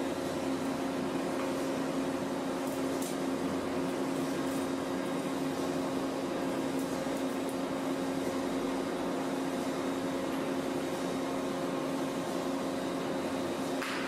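Steady mechanical hum with a few low held tones, and a faint click near the end.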